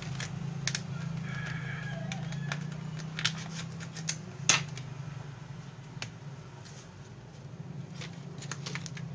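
Scattered small clicks and taps of laptop internals being handled while an NVMe SSD is fitted, with the loudest tap about four and a half seconds in, over a steady low hum.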